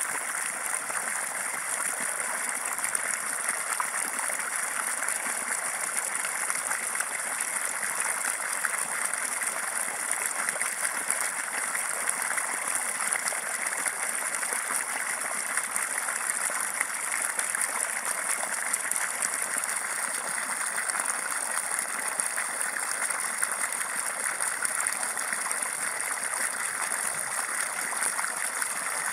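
Water gushing steadily from the end of an irrigation hose into a flooded furrow, splashing onto the standing water.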